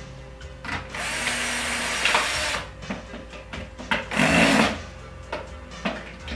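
Cordless drill driving screws through metal brackets into a plywood cabinet bottom. It runs once for about a second and a half, then again in a shorter, louder burst about four seconds in, with small clicks between.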